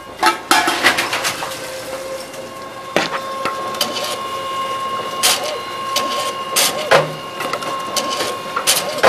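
Tomra T-63 reverse vending machine running with a steady hum as plastic bottles are fed in, with repeated knocks and clatters of the bottles in the intake, several of them sharp and loud.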